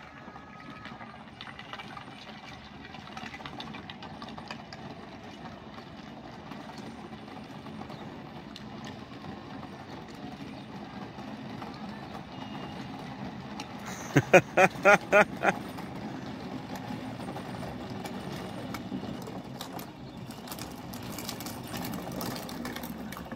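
Child's youth ATV running steadily as it approaches, its motor sound slowly growing louder. About two-thirds of the way in, a quick run of five loud pitched blasts, about four a second, stands out over it.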